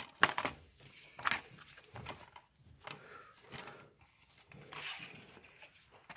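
Plastic DVD case being handled: a few light clicks and taps as it is closed and turned over, with a soft rustle about five seconds in.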